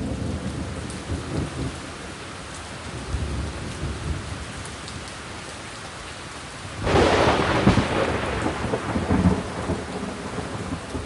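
Thunderstorm: steady rain with low rumbles of thunder, then a loud thunderclap about seven seconds in that rolls on and slowly fades.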